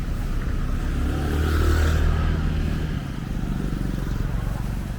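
A motor vehicle's engine passing close by, swelling to its loudest about two seconds in, then easing off.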